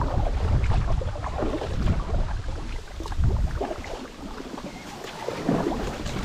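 Kayak paddle strokes dipping and splashing in calm water. Wind buffets the microphone with a low rumble for the first few seconds, then eases.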